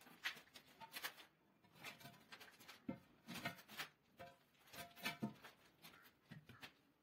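Faint, intermittent knocks and splashes from a water geyser's tank being handled and tipped to empty out muddy rinse water, short separate sounds about once a second.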